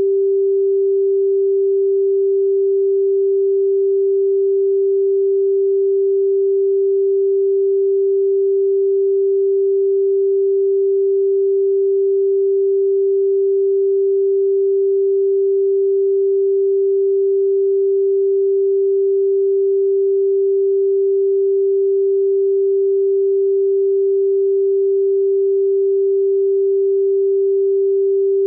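A pure 392 Hz sine tone, the note G4, held steady at one unchanging pitch.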